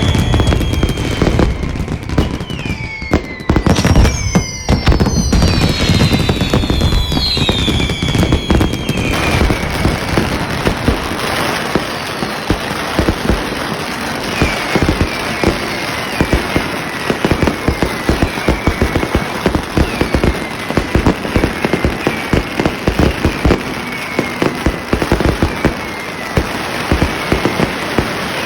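Fireworks and strings of firecrackers going off in a dense, rapid crackle of bangs, with repeated short whistles falling in pitch.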